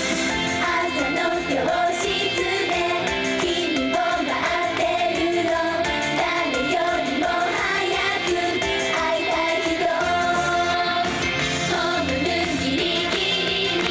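A Japanese girls' idol group singing an upbeat J-pop song live over pop backing music.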